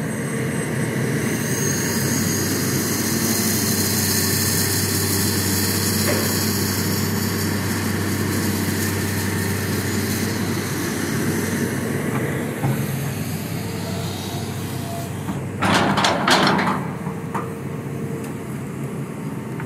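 Excavator engine running steadily under load while the bucket digs through clay. About sixteen seconds in comes a short, loud burst of knocking and scraping.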